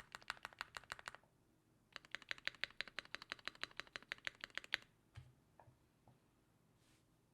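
Typing on a Keychron Q1 mechanical keyboard with lubed Gateron Milky Yellow switches and PBT keycaps: two quick runs of keystrokes separated by a short pause. These are followed about five seconds in by a low thud and a few scattered key presses before it goes quiet.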